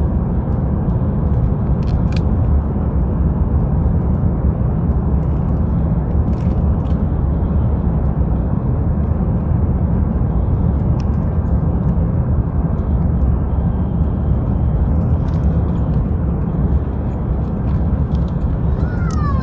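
Steady cabin noise inside an Airbus A350-900 descending on approach: a low rumble of airflow and its Rolls-Royce Trent XWB engines, heard through the fuselage.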